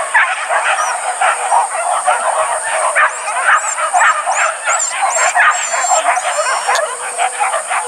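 A pack of hunting dogs barking and yelping all at once in a dense, unbroken chorus, the baying of dogs on a wild boar chase.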